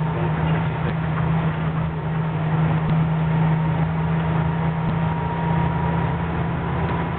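Engine and road noise of a moving vehicle heard from inside its cab, a steady low drone while it drives at an even speed.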